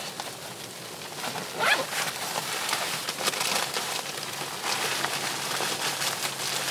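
Light knocks and rustling from split firewood being handled and set into a small box wood stove, with faint scattered clicks and one clearer knock a little under two seconds in.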